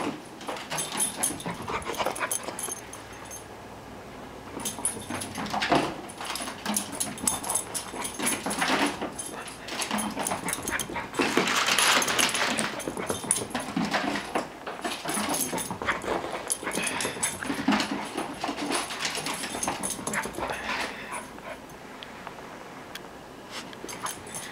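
Puppy playing with a toy and dashing about, making small dog noises among scuffles and knocks that come and go, loudest about halfway through.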